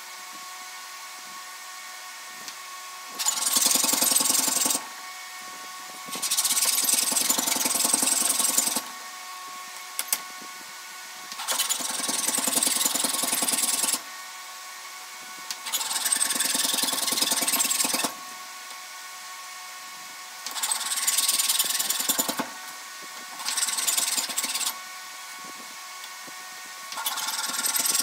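Fine-toothed fret saw cutting fret slots into a karri guitar fingerboard: about seven short bouts of quick back-and-forth rasping strokes, each one to three seconds long, with pauses between them. A steady hum runs underneath.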